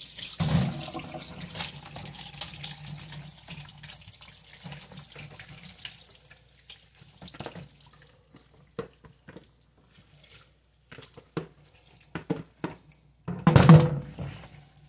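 Wash water and chopped bitter leaves poured from a plastic basin into a fine metal sieve in a stainless steel sink, splashing and draining for about six seconds. Then softer scattered taps as the last leaves are pushed out of the basin, and a loud knock near the end.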